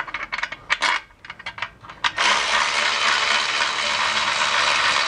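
A few light metallic clicks as a bolt is started by hand. Then, about two seconds in, a cordless electric ratchet runs steadily, spinning in one of the long lower bolts that hold the manual transmission to the engine.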